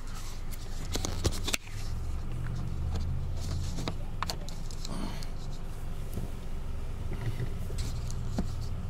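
Car engine idling, heard from inside the cabin as a steady low rumble, with a few sharp clicks and knocks close by.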